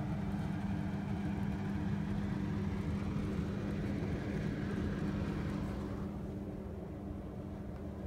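A steady low mechanical hum with a rushing noise over it that fades about six seconds in.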